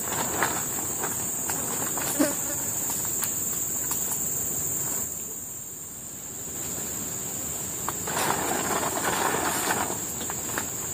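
Insects droning steadily on one high pitch, with rustling and scattered light clicks and knocks of handling over it; the rustling drops away for about a second and a half near the middle.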